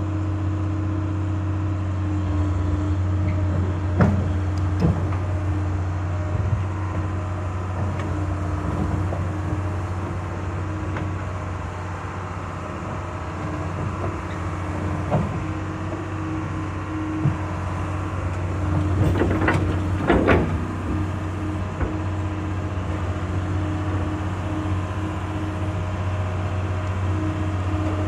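John Deere 690B excavator's 404 diesel engine running steadily as the machine tracks slowly toward the trailer, with a few sharp metallic clanks and a cluster of louder clatter about twenty seconds in.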